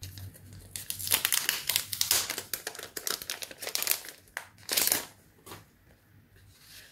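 Clear plastic cellophane packaging crinkling as it is handled and opened, in a dense run of crackles with the loudest crinkle just before five seconds in, then dying away. Sheets of thin washi sticker paper rustle along with it.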